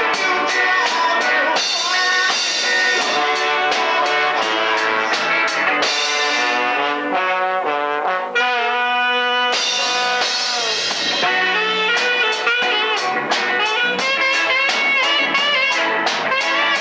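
Live reggae band playing an instrumental passage: a brass horn line led by trombone, with saxophone, over a steady drum-kit rhythm, including one long held note about halfway through.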